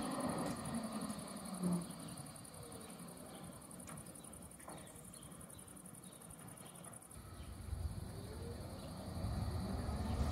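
Tram running away and fading over the first couple of seconds, leaving a quiet stretch with a high, steady chirring that stops about seven seconds in. A low rumble with rising tones then builds toward the end as another vehicle approaches.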